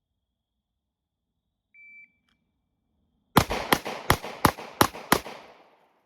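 A shot timer's single short beep, then a handgun fired six times in quick succession, the shots about a third of a second apart: a six-round bill drill drawn from concealment.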